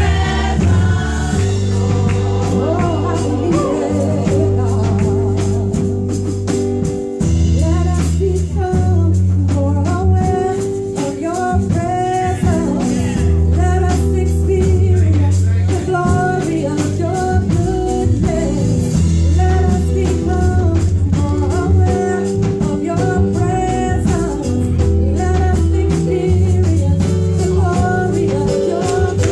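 Women's gospel singing group performing live into microphones, several voices singing sustained notes with vibrato over instrumental backing with a steady beat and a strong bass line.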